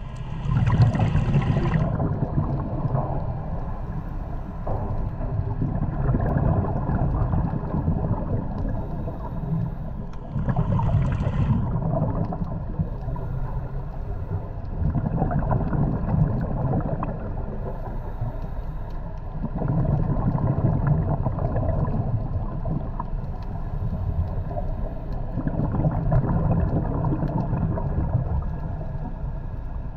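Underwater sound of a diver breathing through a scuba regulator: the exhaled bubbles come as a low rumbling gurgle about every five seconds, with a short hiss of inhalation near the start and again about ten seconds in.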